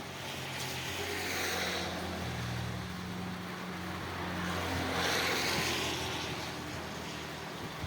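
Rain hiss that swells twice, with the low steady hum of a motor vehicle's engine underneath, its pitch shifting a little.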